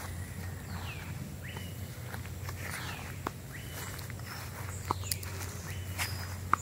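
Footsteps on the ground, with a few sharp clicks in the second half, while birds call with short falling whistles, all over a steady low hum.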